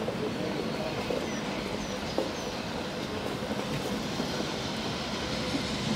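Steam locomotive hauling coaches on its approach into the station, heard as a steady low rumble.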